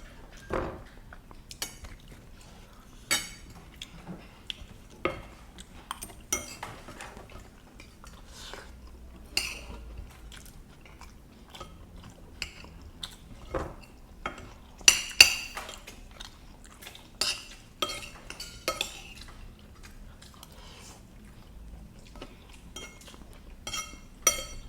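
Spoons and forks clinking and scraping on plates while eating noodles, with irregular sharp clinks and a louder cluster about fifteen seconds in. Faint chewing between them.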